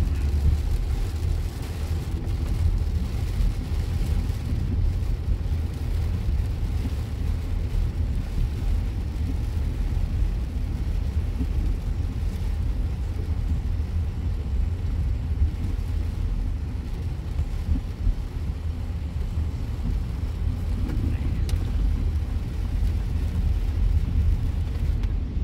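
Car cabin noise while driving on a rain-wet highway: a steady low rumble of road and engine with an even hiss over it.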